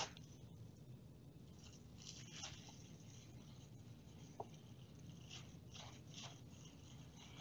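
Near silence, with a few faint soft rustles and squishes from gloved hands squeezing a tights tube of mashed food over a plastic bowl.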